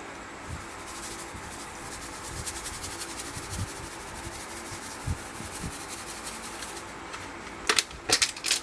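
A dry-yeast sachet being handled and its yeast sprinkled onto the wort: a fine, dense rustle of small ticks, then louder crinkling of the packet near the end.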